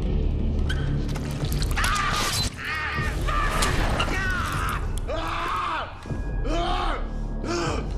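A man screaming and crying out in pain in a string of strained cries, starting about two seconds in, as he strains against knife-blade wrist restraints. Under it runs a low, dark film-score drone.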